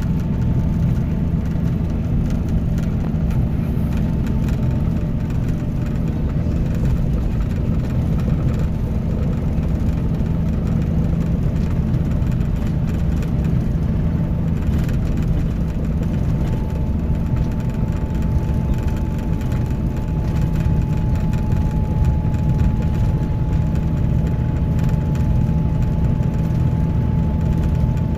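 Scania K310IB coach's diesel engine running steadily, a deep even drone with a faint steady whine above it.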